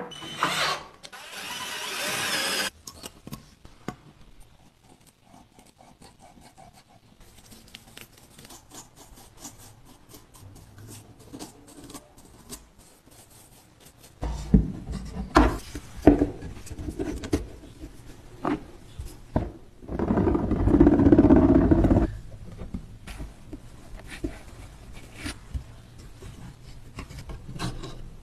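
Woodworking sounds from handling and shaping small wooden parts: scattered taps, knocks and rubbing of wood, with two short loud bursts of tool noise, one near the start and one about two-thirds of the way through.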